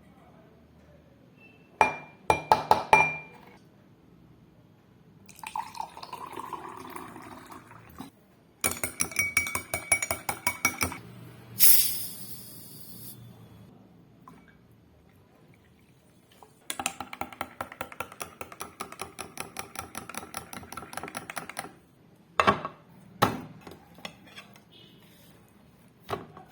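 Cutlery and glassware clinking: a spoon tapped and stirred quickly against a glass or cup in several runs of fast clicks, some ringing, with a stretch of liquid pouring between them and a few single clinks near the end.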